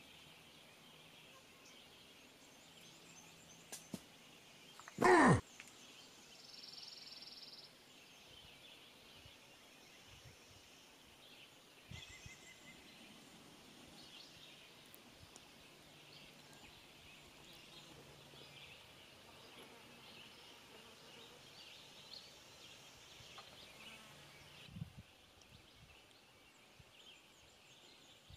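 Outdoor wildlife ambience: a faint, steady high chorus of calling animals. About five seconds in comes one loud, brief call sliding downward in pitch.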